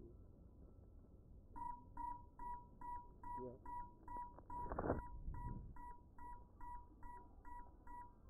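Crashed FPV quadcopter's lost-model buzzer beeping at a steady, even pace, about two and a half beeps a second, starting about a second and a half in. A brief louder thump comes about five seconds in.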